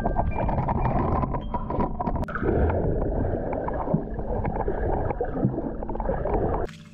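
Muffled underwater noise picked up by a GoPro held under the sea in its waterproof housing: water sloshing and gurgling around the camera, with many small crackles and clicks. It cuts off suddenly near the end.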